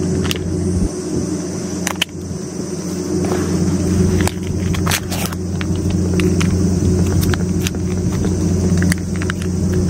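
A steady low motor hum, like an engine running, slowly getting a little louder, with a steady high hiss above it and scattered faint clicks.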